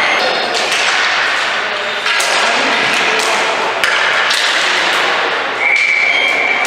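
Ball hockey play: several sharp knocks, as of the ball and sticks hitting the boards, over a steady wash of noise, with a single held high-pitched tone starting about a second before the end.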